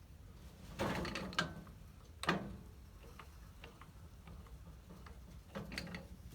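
Handling knocks and rattles, with a rattle about a second in, a sharp knock a little after two seconds, a few light ticks, then another rattle near the end.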